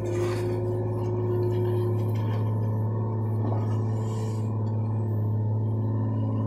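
A John Deere compact excavator's diesel engine running steadily under working load as it digs and swings a bucket of dirt, with a steady hydraulic whine over the engine hum; the whine's main pitch drops out about two seconds in.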